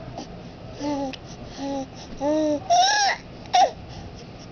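A two-month-old baby cooing: a string of short, arched coos, the last two higher-pitched and sharper, like little squeals.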